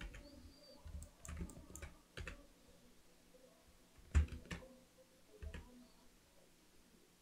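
Computer keyboard and mouse clicks: a scattering of short, light key and button presses, the loudest a little over four seconds in.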